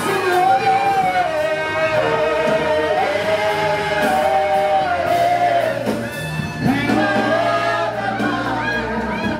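Gospel worship song: voices singing a flowing melody over instrumental accompaniment with a steady bass line.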